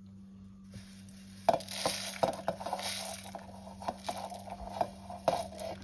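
Dry spices and seeds tipped off a steel plate into a steel mixer-grinder jar of dried red chillies: a pattering rush of seeds and pieces landing, starting about a second and a half in, followed by scattered clinks as the last seeds are scraped off the plate.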